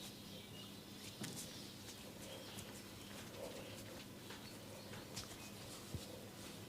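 Faint, scattered light clicks and taps of wooden tok sen massage tools, coming at irregular intervals over a low steady hum.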